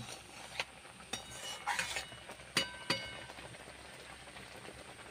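Metal spatula clinking and scraping against a metal kadai while stirring pineapple chutney simmering in sugar syrup. There are a handful of sharp, briefly ringing knocks and a scrape in the first three seconds, then only a soft bubbling hiss.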